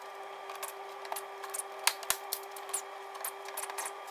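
Cordless tool undoing the Torx screws that hold a car's plastic undertray: a run of sharp, irregular metallic clicks and rattles over a steady hum.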